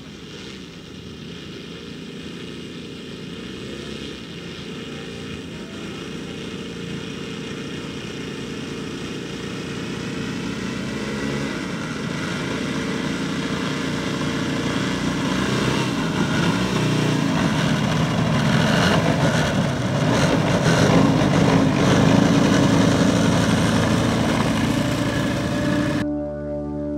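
The twin propeller engines of a scale radio-controlled Canadair CL-215 model run as it taxis toward the listener, growing steadily louder. Near the end the engine sound cuts off and guitar music begins.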